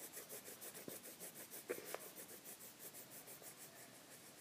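Colored pencil scratching faintly on paper in quick, even back-and-forth shading strokes.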